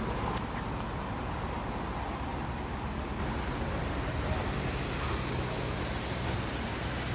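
Steady outdoor background noise, an even wash of distant sound with low rumble and hiss and no single clear source, with two faint clicks just after the start.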